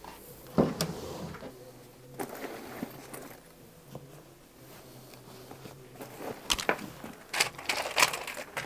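Scattered sharp knocks and clicks of objects being handled in a small room, with faint room tone between them. Most of the knocks come near the end.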